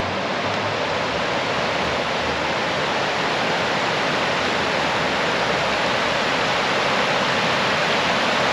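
The Torrente Gorgazzo stream roaring as it pours over man-made drops in its channel: a steady, even rush of water.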